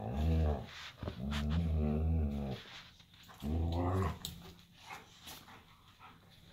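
Dogs growling while play-wrestling: three low, rumbling growls, the middle one the longest, then quiet.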